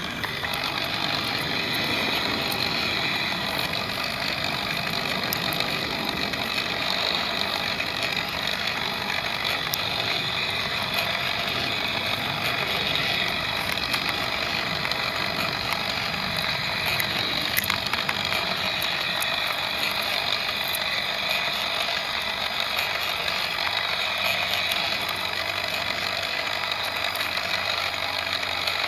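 Lego Technic 4×4 model's electric motor and plastic gear train running steadily, a dense high whirring whine with occasional faint clicks.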